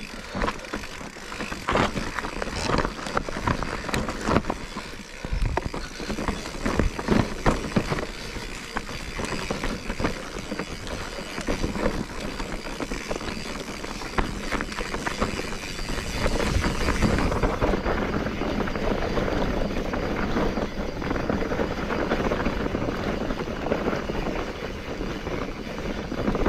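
A vehicle travelling over a rough track: steady running noise with frequent knocks and rattles, which turns smoother and more even about two-thirds of the way through.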